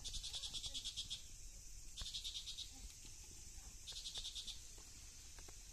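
Insects chirping in fast, evenly pulsed high trills, in three bursts a couple of seconds apart, over a steady high insect hum.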